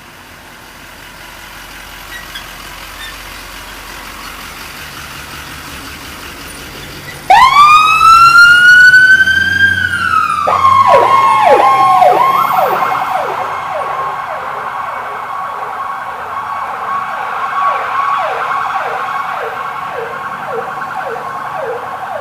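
Ambulance approaching with its vehicle noise growing. About seven seconds in, its Whelen electronic siren cuts in loudly with a rising wail that holds and then falls away. It goes into a fast, repeating cycle of short downward sweeps, about two a second.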